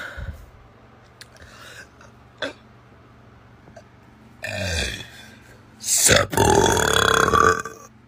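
A woman burping: a shorter, falling burp about halfway through, then a long, loud burp near the end.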